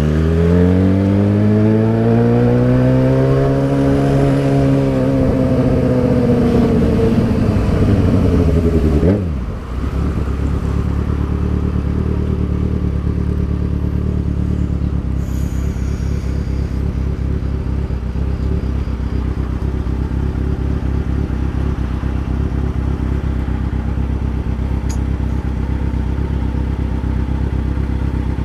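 Motorcycle engine, likely the rider's Yamaha XJ6 inline-four. Its pitch climbs for about four seconds and sinks slowly back down, drops sharply about nine seconds in, then runs steadily at a low, even note.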